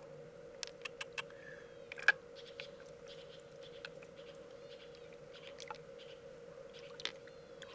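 Scattered sharp clicks and taps of hard objects being handled, the loudest about two seconds in, over a steady low hum.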